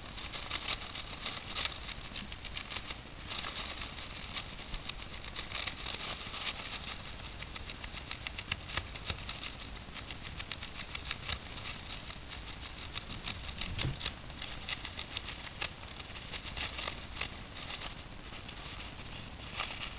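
Hamster shredding toilet paper: a continuous, fast crackle of paper being torn and rustled.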